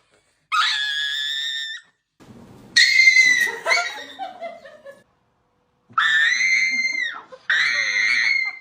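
Dog giving high-pitched, drawn-out screaming cries, four of them with short gaps between.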